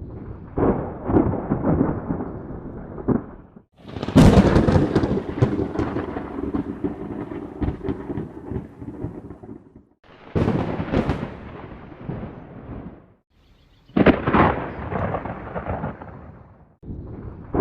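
A series of thunderclaps, about five in turn, each starting with a sudden crack and running on as a rumble before breaking off into a short gap. The loudest and sharpest starts about four seconds in and rumbles for several seconds.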